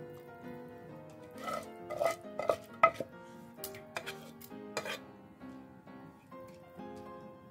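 A spatula knocking and scraping against a stainless-steel rice-cooker pot as rice is stirred into broth. It gives a run of sharp knocks, each with a short metallic ring, loudest about three seconds in. Soft piano music plays underneath.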